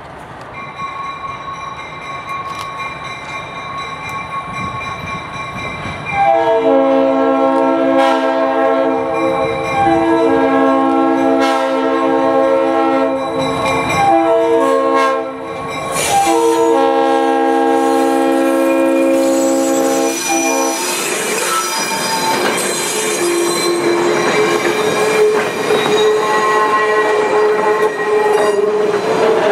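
Leslie RS3L three-chime air horn on an EMD SW900 diesel switcher, sounded in a series of blasts starting about six seconds in, the last and longest ending about twenty seconds in, over the rising sound of the approaching locomotive. After that the passenger train runs close by with wheel squeal.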